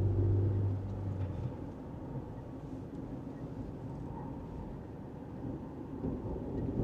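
Cabin noise of a first-generation Honda CR-V on the move: a steady low engine hum that fades about a second and a half in, then a steady low road rumble.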